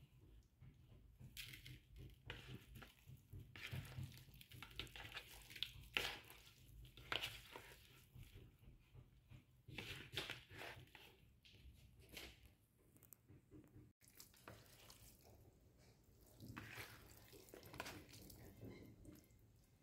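Faint, irregular squishing and rubbing of a hand kneading raw chicken pieces with dry spice powder in a plastic bowl.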